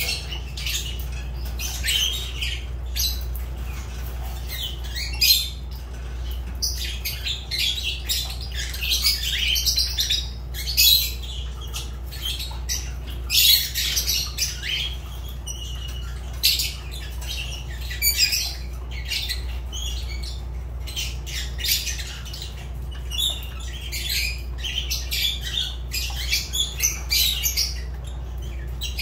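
Fischer's lovebirds chirping: a busy, irregular stream of short, shrill high-pitched calls, some louder than others, over a steady low hum.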